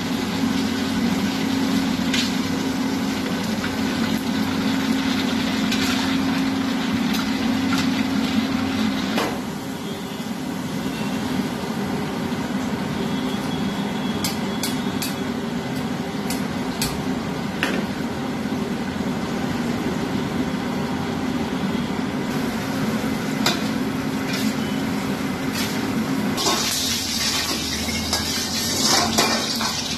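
Chicken deep-frying in oil in a wok over a gas wok burner: steady burner and kitchen exhaust noise with oil sizzling, and metal utensils clicking against the wok now and then. A louder, brighter hiss comes near the end.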